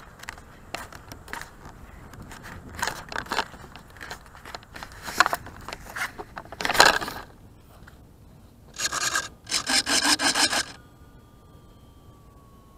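Handling noise from a camera mounted on a model airplane as the plane is carried and set down on the grass: irregular rubbing and scraping against the airframe, with a rapid run of scrapes near the end. The plane's motor is not running.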